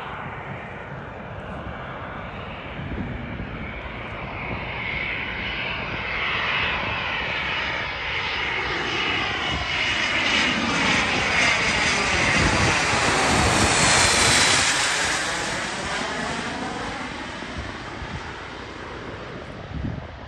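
Twin Pratt & Whitney Canada PW535A turbofans of a Cessna 560 Citation Encore on landing approach, passing low overhead. The jet noise builds steadily, is loudest about two-thirds of the way through, then fades as the aircraft moves away, with a high whine that drops in pitch as it passes.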